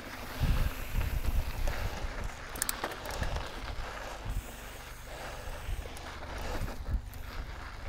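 Mountain bike riding over a dirt and rock trail: tyres rolling and crunching, with irregular knocks and rattles from the bike over bumps, and wind rumbling on the microphone.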